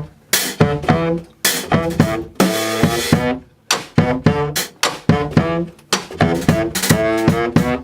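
A four-piece brass band playing a tune in a rhythmic, staccato pattern of short, punchy notes with brief gaps between phrases.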